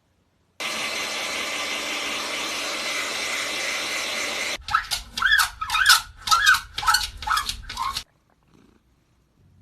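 A steady rushing hiss lasts about four seconds and cuts off suddenly. Then a cat gives a quick run of about seven short meows.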